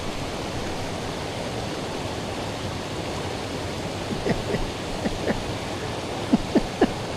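Steady rushing of a flowing mountain river, the Tellico River. A few short faint chirps or squeaks sound over it in the second half.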